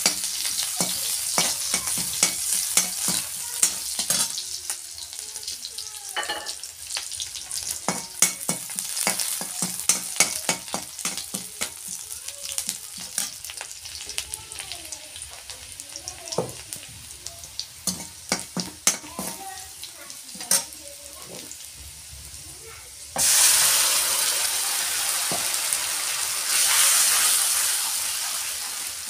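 Sliced onions crackling and sizzling in hot oil in a metal kadhai, with a slotted spoon stirring. About 23 seconds in, a sudden loud hiss as wet ground tomato-chilli masala paste goes into the hot oil; it keeps sizzling, swells again a few seconds later, then eases off.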